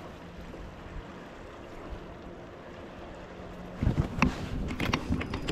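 Quiet, steady background on a fishing boat with a faint low hum, then from about four seconds in a quick run of knocks and clatters on the boat.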